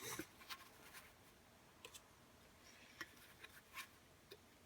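Near silence with a few faint, scattered clicks and taps from handling a small metal tin case and its contents.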